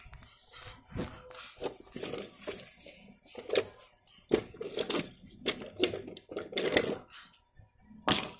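Irregular knocks, taps, scrapes and rustles from a phone being handled and moved about close to its microphone.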